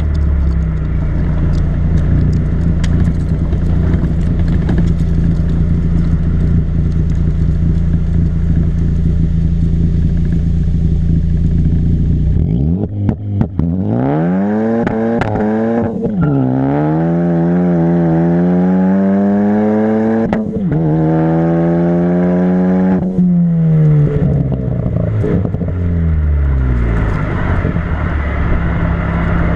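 Ford Focus ST's turbocharged four-cylinder through a catless MBRP turboback exhaust, heard at the rear of the car: a steady drone with scattered crackles at first. About twelve seconds in comes a hard pull, the pitch rising and dropping at two quick upshifts. Near the end the revs fall away on lift-off and it settles back to the drone.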